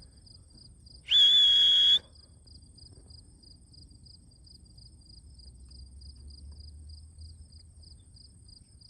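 A loud whistle held for about a second, a little over a second in, calling a racing pigeon in to the loft. Crickets chirp steadily behind it at about three chirps a second, with a thin, steady high insect trill.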